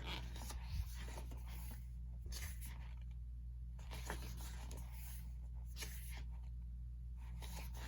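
Soft paper rustling as an album's photo book and paper inserts are handled, a few brief swishes spread through, over a steady low hum.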